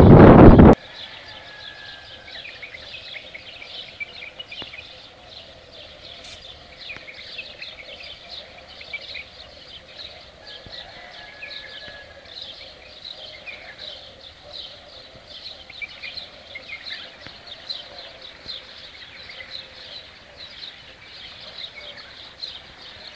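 Many small birds chirping busily over a faint, steady rush of floodwater. A loud blast of wind on the microphone cuts off within the first second.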